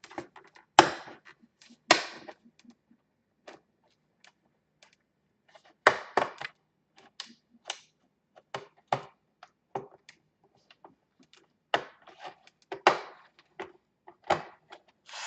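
Sharp plastic clicks and snaps, irregular, with a few louder pops among quieter ticks, as a laptop's plastic case is pried apart with a guitar pick and its snap clips let go.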